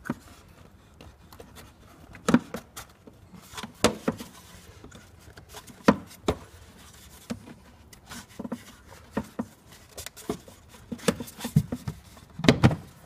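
Scattered clicks and knocks of rubber and hard plastic being handled: the corrugated rubber air intake hose is worked onto the plastic air filter housing, and the housing lid is pressed into place. There is a denser run of knocks near the end.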